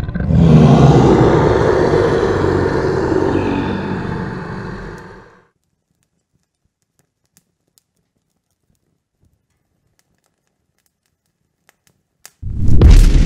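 A dragon's roar, loud at first, then fading and cutting off about five seconds in. Near the end a sudden, loud, deep boom breaks in.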